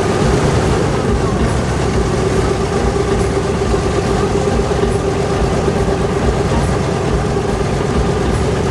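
Airboat engine and propeller running steadily, a loud continuous drone with one strong steady hum over a low rumble.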